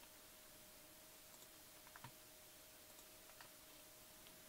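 Near silence: room tone with a faint steady hum and a few faint, short clicks, the clearest about two seconds in.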